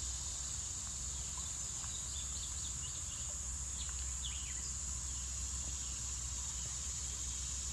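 Steady high-pitched drone of insects such as crickets, with a few short bird chirps and a low rumble underneath.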